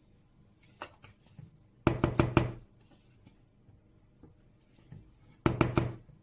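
Spatula tapped against the rim of a stainless steel mixing bowl to knock off banana bread batter: a quick run of about five taps about two seconds in, and another of about four near the end.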